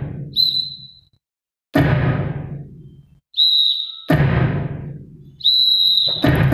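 Three short, high whistle blasts alternating with two deep, booming drum hits that each ring out for about a second; a rhythmic music track starts just before the end.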